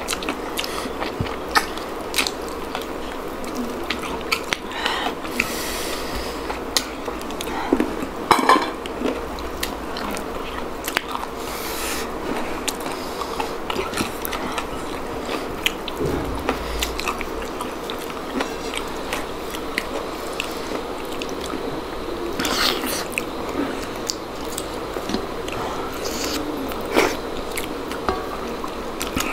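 Close-up chewing and mouth sounds of people eating dhido and chicken curry by hand, with scattered short clicks and smacks and occasional clinks of plates and bowls.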